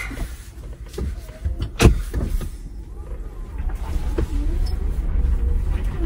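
Underside of a Jeep Wrangler 4xe heard from beside the rear axle: a sharp knock about a second in and a louder one near two seconds as the transfer case is shifted into two-wheel drive, then a low rumble as the Jeep starts to roll, with a few faint whining tones.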